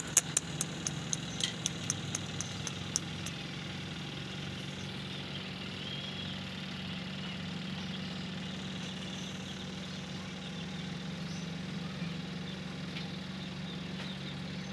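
A steady low hum with several closely spaced pitches, like an idling engine. In the first three seconds a quick run of about a dozen sharp clicks fades away.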